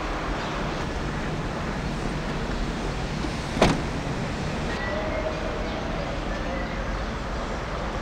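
Steady hum of road traffic in the open air, with one short sharp sound about three and a half seconds in.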